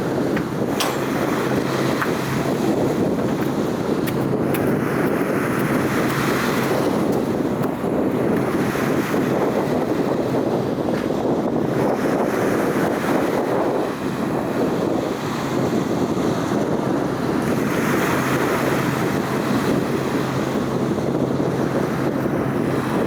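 Wind blowing across the microphone, a steady rushing that swells and eases every few seconds, over a low steady hum.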